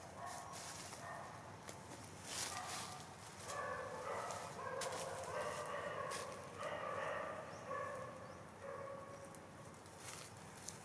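A run of short, pitched animal calls, several in a row through the middle, each under half a second, with a few faint clicks around them.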